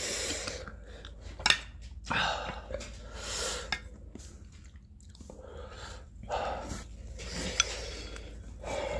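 Close-miked eating sounds: spicy instant noodles being lifted with chopsticks from a metal pot into bowls and chewed, with a few sharp clicks of chopsticks against the dishes.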